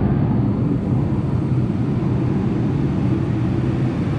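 A loud, steady machine noise with a constant low hum, running evenly.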